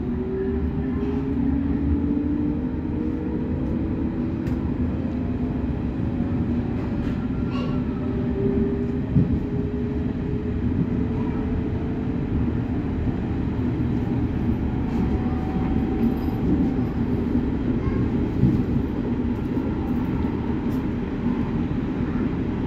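Berlin S-Bahn class 482 electric train heard from inside the carriage while moving. The traction motors whine, rising in pitch as it gathers speed over the first several seconds, then settle into a steady rumble of wheels on rails with a few faint clicks.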